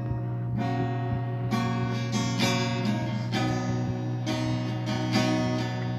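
Acoustic guitar being strummed, a run of chords that change every second or so, over a steady low hum.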